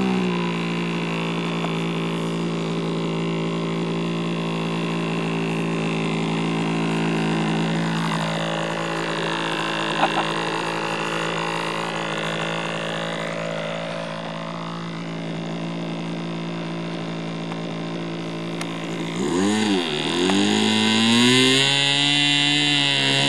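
Engine of a large radio-controlled Su-31 model aeroplane running steadily at low throttle. About 19 seconds in, its speed dips sharply and then climbs, and it runs louder near the end.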